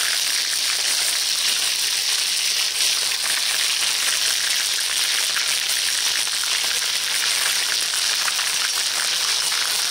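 Hot ghee sizzling with whole spices frying in a kadhai: a steady sizzle with fine crackling throughout.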